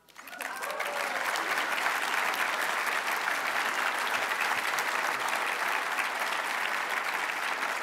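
Audience applauding, swelling up within the first second and then holding steady.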